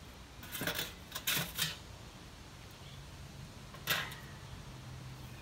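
Metal clanking as the steel sections and wire cooking grate of a Weber Smokey Mountain smoker are fitted together: a quick run of clatters about half a second to a second and a half in, then one sharp clank about four seconds in.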